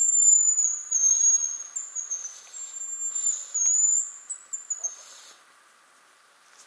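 Hazel grouse whistle: a very high, thin whistled call in several drawn-out notes with small dips and wavers in pitch, stopping after about five seconds.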